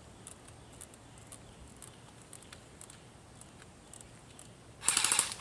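Airsoft flak gun, a tripod-mounted electric airsoft gun, opening up with a loud full-auto burst of rapid clicks near the end, after a few seconds of faint scattered ticks.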